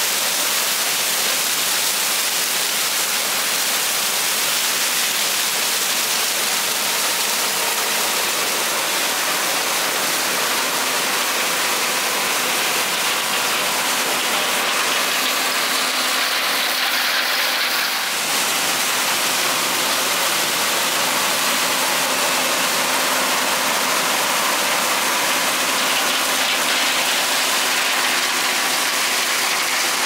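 John Deere combine running as it harvests corn: a steady, even rushing noise of the machine working and stalks feeding through the corn head, with a faint steady hum joining about a third of the way in.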